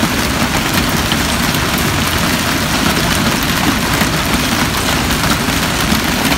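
Severe hailstorm: a loud, steady, dense clatter of hailstones and heavy rain striking hard surfaces.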